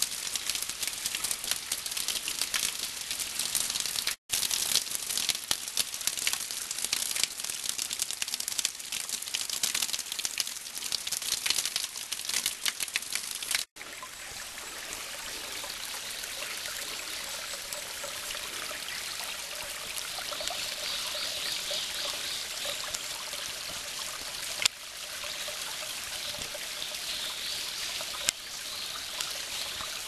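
A small waterfall trickles and splashes down a rock face into a shallow rocky stream as a steady rush of water. The sound cuts out briefly twice, about four and fourteen seconds in, and is smoother after the second cut.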